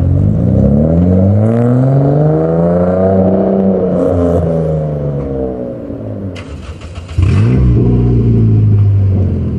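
Car engine revving: its pitch climbs slowly for about three seconds and sinks back, then about seven seconds in it changes suddenly to a steady held note.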